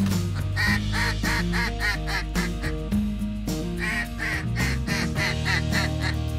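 A duck call blown in two quick series of quacks, each about a second long, over background music with long held notes.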